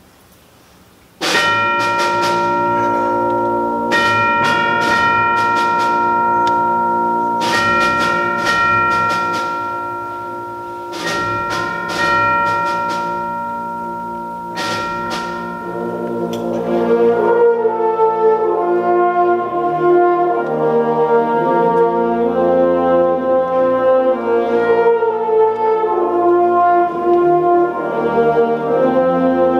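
Concert band opening a piece with ringing struck percussion, in groups of strikes every three to four seconds. About halfway through, the brass and winds come in with slow, sustained chords.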